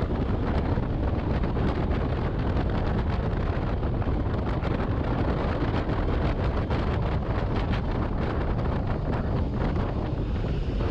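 Wind rushing and buffeting over the microphone of a motorcycle being ridden along a road, with the engine running steadily underneath.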